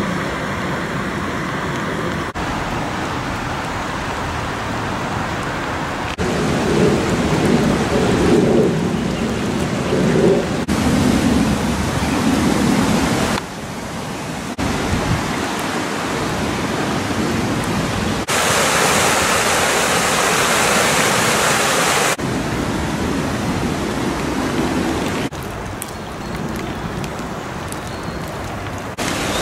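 Rushing water of a swollen, fast-flowing stream and weir: a steady roar that jumps in level and tone every few seconds as one short take gives way to the next, brightest and loudest a little past the middle.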